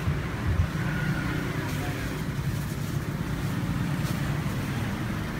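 Steady low whir of a Soundcraft PMX-806D powered mixer's cooling fans running.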